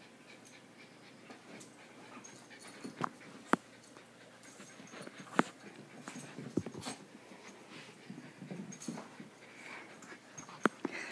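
A beagle and a small dog play-fighting: panting and scuffling, broken by about five sharp clicks.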